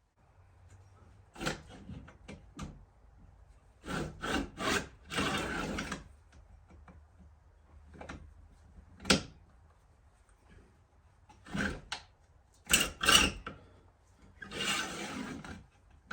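Hand-filing a chainsaw chain: irregular short scrapes of a file on the cutters and rakers, with two longer strokes of about a second each, one near the middle and one near the end. Between them come sharp clicks and knocks of metal tools against the chain; the two loudest clicks fall about nine and thirteen seconds in.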